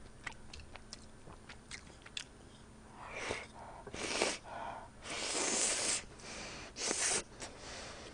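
Close-miked eating of buldak stir-fried ramen noodles: a few faint mouth and chopstick clicks, then from about three seconds in several noisy slurps as noodles are sucked in, with chewing between them.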